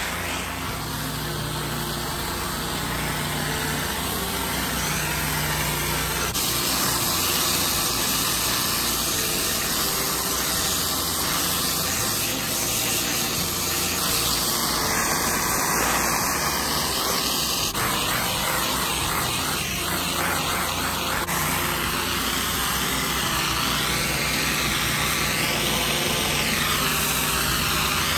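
Pressure washer running: its engine drones steadily under the hiss of high-pressure water spraying onto greasy concrete. The sound shifts abruptly a few times.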